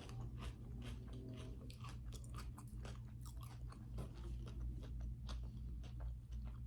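A person chewing food close to the microphone, with many small irregular clicks and crackles of biting and crunching. A steady low hum sits underneath.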